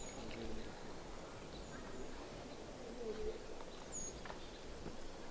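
A bird chirping: a few short, very high notes, each dropping slightly in pitch, spaced a second or two apart, over faint distant voices and background ambience.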